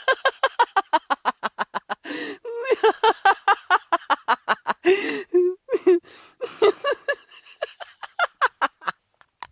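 Hearty laughter in quick, repeated 'ha' bursts, several a second, broken by short pauses for breath.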